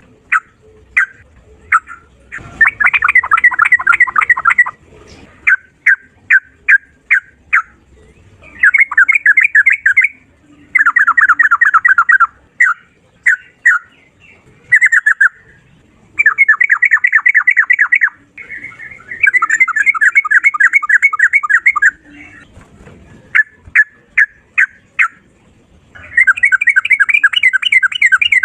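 Yellow-vented bulbul (trucukan) singing loudly: runs of short separate notes broken by long, fast rattling trills of two to three seconds each.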